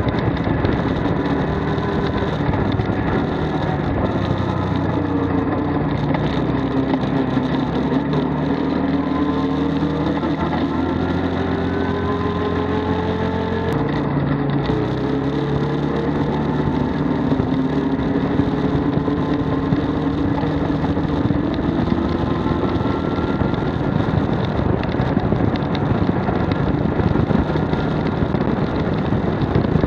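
Arctic Cat Wildcat 1000's big V-twin engine running under way, its pitch rising and falling as the speed changes, with an abrupt change in its note about halfway through.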